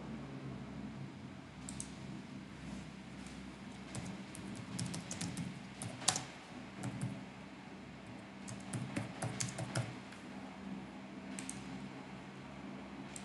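Computer keyboard typing in short bursts of keystrokes, with one louder click about six seconds in.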